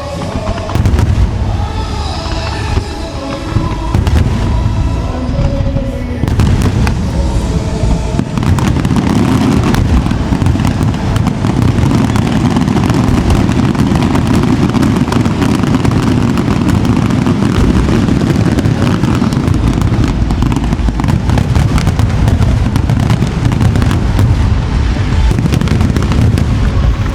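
Aerial fireworks display set to music: for the first few seconds the music is clear, then from about eight seconds in a dense, unbroken barrage of shell bursts and crackle takes over and covers the music.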